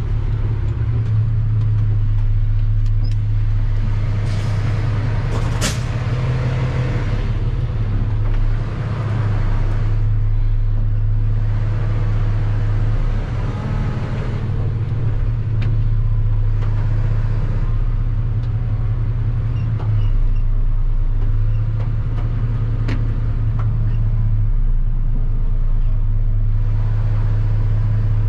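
A tractor-trailer's diesel engine running with a steady low drone as the truck drives up the road, with a sharp click about six seconds in.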